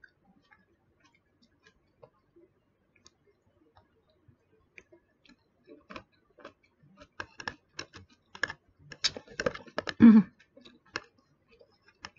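A fork clicking and scraping against a plastic food container while picking at pomelo segments. There are a few faint scattered clicks at first, then a quicker run of clicks through the second half, with a short louder sound just after ten seconds in.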